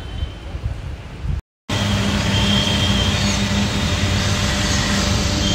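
Street noise with some wind on the microphone, cut off suddenly about a second and a half in. It gives way to the steady drone of an auto-rickshaw's engine and road noise, heard from inside the rickshaw.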